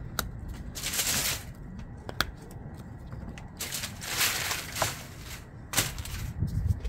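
Seasoning shaker bottle being shaken over a roast: two bursts of rattling hiss, each about a second long, with a few sharp taps between them.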